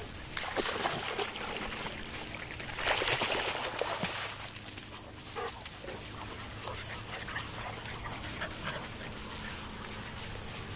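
Labrador puppies whimpering and yipping as they run about, with a louder, noisy rush about three seconds in.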